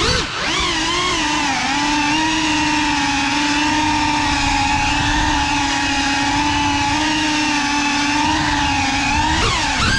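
A small FPV drone's electric motors and propellers whine steadily. The pitch rises and falls with the throttle in the first second or so and again near the end, and holds level in between.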